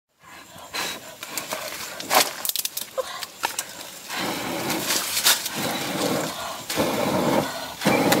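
Dry sticks and twigs snapping and clicking as they are pushed into a small wood fire. Then, from about four seconds in, several long breaths blown hard onto the embers to fan them into flame.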